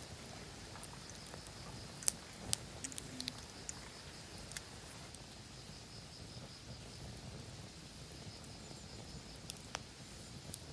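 Wood campfire crackling in a fire pit, with sharp pops: a cluster about two seconds in and a couple more near the end.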